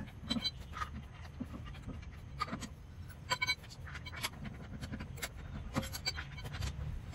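Light metallic clinks and ticks, scattered and uneven, as steel lug bolts are handled and threaded into an alloy wheel's hub by hand, several clinks ringing briefly, over a low steady background rumble.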